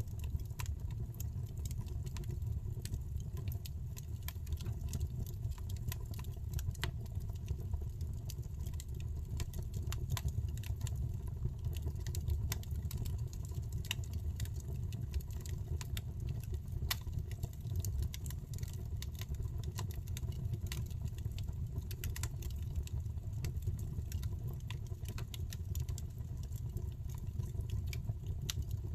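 Wood fire burning in a fireplace, crackling and popping in irregular snaps over a steady low rumble of flame.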